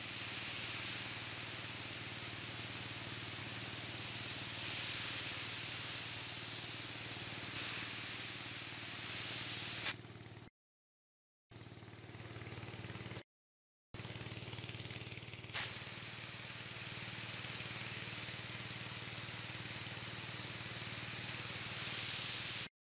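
Motorized pesticide sprayer at work: the steady hiss of a spray jet over the hum of the sprayer's engine-driven pump. The sound breaks off twice briefly, then stops near the end.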